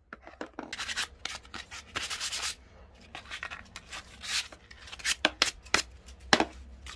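Irregular rubbing strokes of a cloth worked over the handle of an old wooden spoon with a freshly drilled hole, followed by a few sharp knocks near the end, the loudest about six seconds in.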